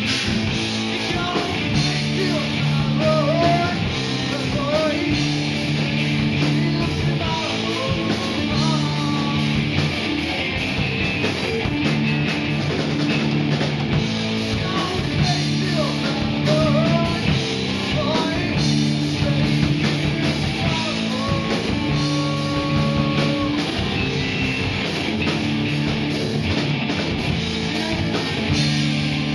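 A rock band playing live: two electric guitars and an electric bass through amplifiers, with a drum kit.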